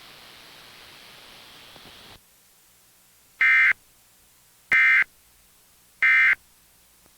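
Emergency Alert System end-of-message signal: three short, loud, screechy data bursts of the EAS digital code, about 1.3 seconds apart, closing the monthly test. Before them a steady hiss cuts off suddenly about two seconds in.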